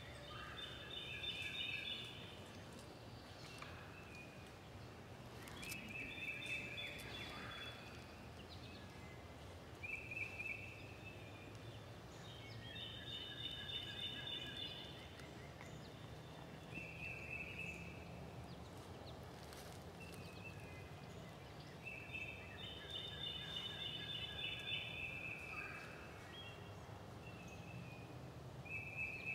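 Bird calls outdoors: short trilled phrases repeated every few seconds, some overlapping, over a low steady background rumble.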